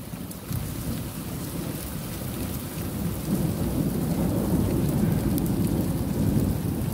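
Thunder rumbling through steady rain; the rumble swells louder about three seconds in.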